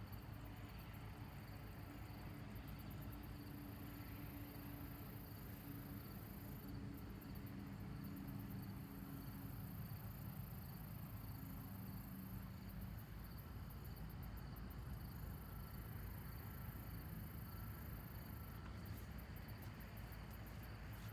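Insects trilling in a steady high tone that breaks into quick pulsed chirping every few seconds, faint, over a low rumble and a low hum that fades about halfway through.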